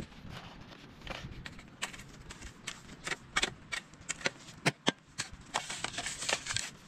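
Shovel working gravelly soil: irregular scrapes and sharp clicks of small stones rattling as the soil is thrown and spread, with a cluster of clicks near the end.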